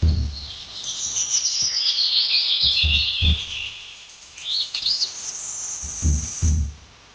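Birds chirping, a dense run of high twittering calls, with a few low thumps underneath; the sound drops off suddenly just before the end.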